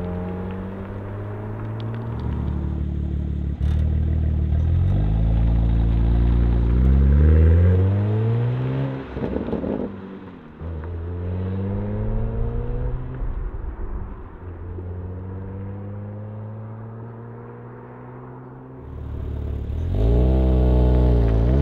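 BMW G80 M3's twin-turbo inline-six through an equal-length Valvetronic exhaust, pulling away gently and rising in pitch through several upshifts. The exhaust valves are closed at first and open after a cut about ten seconds in. A harder, louder acceleration with the valves closed starts near the end.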